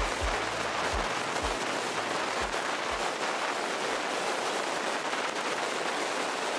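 Steady rushing road and wind noise from a moving vehicle, with low thuds about every half second that fade out over the first three seconds.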